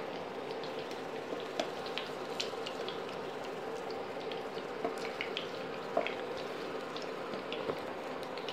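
Batter-coated paneer pieces frying in hot oil in a non-stick pan: a steady sizzle with scattered crackles and pops, over a steady low hum.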